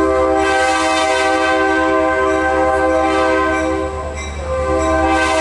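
Diesel locomotive's multi-tone air horn heard from inside a passenger car: one long blast that stops about four seconds in, then a second blast starting moments later, over the train's steady low rumble.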